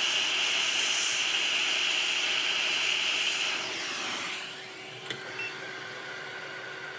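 Hot air rework station blowing at 70% airflow and 440 °C to desolder a phone charging connector: a loud, steady hiss that falls away, dropping in pitch, about four seconds in. A softer steady hiss with a faint hum follows, with a single click about five seconds in.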